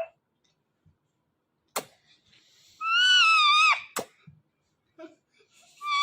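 Ringneck parrot giving a loud, drawn-out screech about three seconds in, lasting about a second and dropping in pitch at its end, with a second screech starting near the end. Two sharp clicks fall between.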